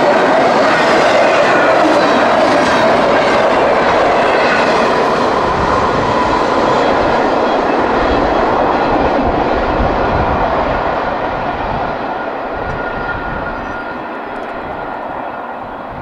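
CSX intermodal freight train rolling past, its wheels clicking over the rail joints, the sound fading away over the last few seconds.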